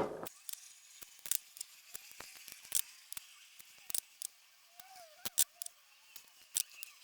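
Irregular small clicks and ticks of a hex key and steel pins as the replaceable pins are threaded into a flat mountain-bike pedal.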